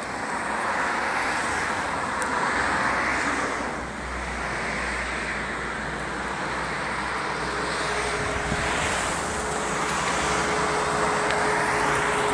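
Passenger jet flying low overhead and road traffic passing: a rushing noise that swells and fades in waves, with a steady hum joining about seven seconds in.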